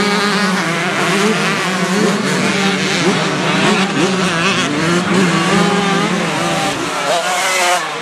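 Several dirt-bike engines running and revving together, their pitches repeatedly rising and falling over a steadier low drone.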